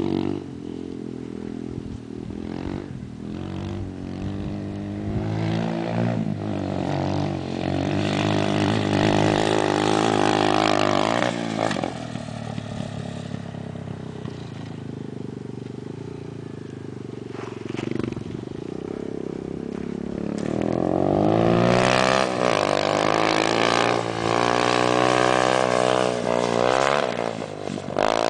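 Motorcycle engine running and revving as it is ridden around a dirt lot, its pitch rising and falling with the throttle. It grows louder about a third of the way in, and again from about three quarters of the way in as it comes closer.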